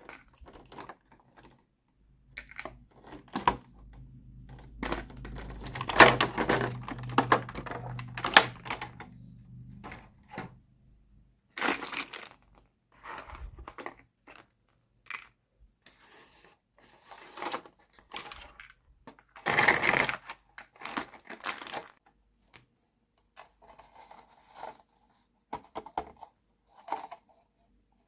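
Small plastic toy kitchen pieces being handled, clicked together and set down, with irregular taps and clicks and some crinkling of packaging. A low hum runs underneath for several seconds near the start.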